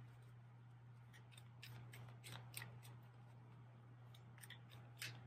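Tarot cards being shuffled by hand: faint, irregular soft clicks and snaps of card edges, over a steady low hum.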